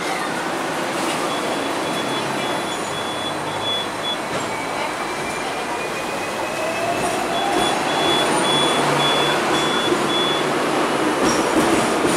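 Hong Kong double-decker electric tram running along its track, heard from the upper deck: steady rolling and running noise with a whine that rises in pitch from about halfway through. A high, evenly pulsed beeping sounds twice, for about three seconds each time.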